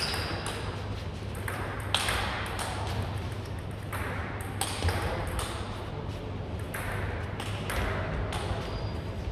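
Table tennis rally: the ball clicks off the bats and the table in quick alternation, about two hits a second, in a long continuous exchange. The clicks echo in a large sports hall.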